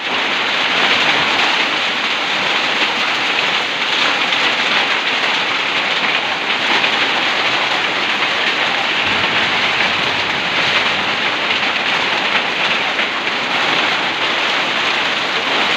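Hail and heavy rain beating down together in a hailstorm, a loud, steady, dense rush of impacts that starts suddenly.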